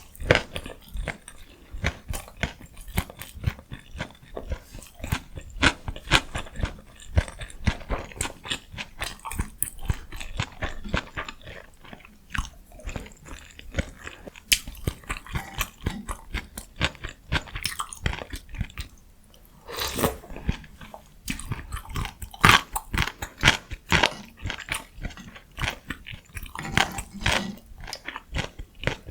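Close-miked ASMR eating sounds: a person chewing and biting food, a dense run of rapid wet mouth clicks, with a few louder, longer bites or slurps in the second half.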